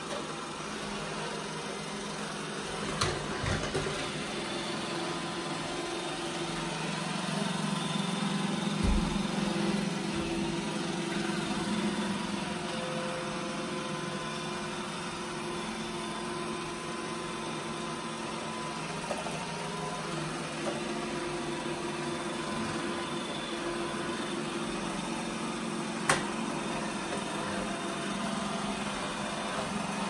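iRobot Roomba i7+ robot vacuum cleaning a hard laminate floor: a steady hum and whir of its suction motor and brushes, louder for a few seconds as it comes closer, with two sharp clicks, one about three seconds in and one near the end.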